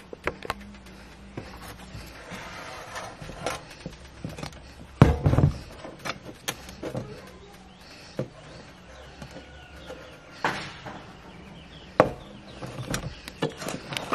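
Scattered knocks and clinks of cooking things being handled on a table: metal bowls and a tray, a cup and spoon, a flour packet being moved. The loudest knock comes about five seconds in.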